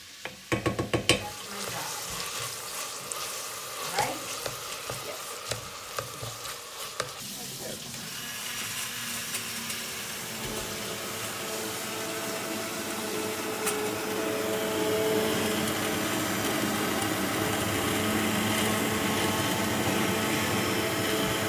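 A spoon stirring and knocking against a stainless steel pot for several seconds, then a Bosch 750 W immersion hand blender starts about seven seconds in and runs steadily, pureeing potato, onion and chorizo into the caldo verde soup base.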